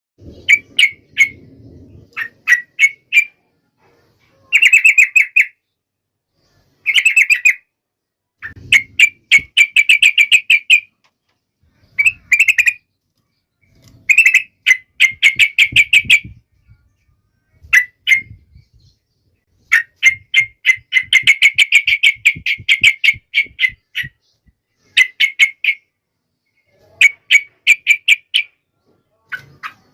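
Yellow-vented bulbul (trucuk) singing vigorously in rapid chattering phrases of quick, bubbling notes. The phrases repeat every second or two with short pauses between them.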